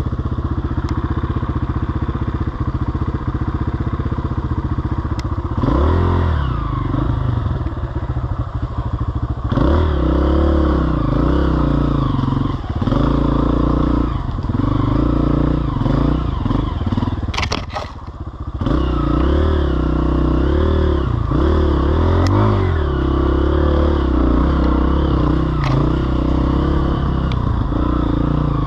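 Off-road vehicle engine revving up and down over and over as it is ridden, with the throttle closing briefly about two-thirds of the way through before it picks up again.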